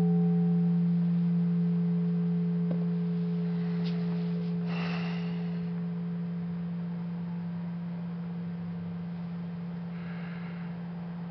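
Frosted quartz crystal singing bowl ringing out after being played with a mallet: one steady low tone with a fainter higher overtone, slowly fading. It is rung to open a moment of silent meditation.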